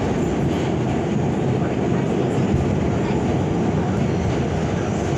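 R46 subway car running at speed, heard from inside the car: a steady rumble of wheels on rail and car body.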